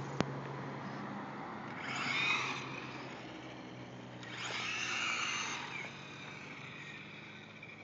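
Tamiya FF01 radio-controlled car's electric motor and gears whining as it accelerates in two bursts, about two seconds in and again from about four and a half seconds, the pitch rising and falling with each burst. A sharp click just after the start.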